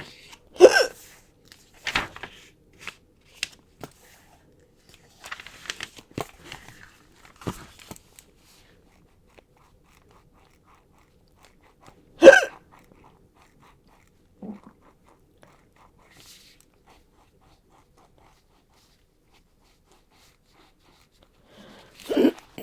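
A young woman hiccuping: two short, sharp hiccups, one about a second in and one about twelve seconds in. Faint clicks and soft rustles come in between.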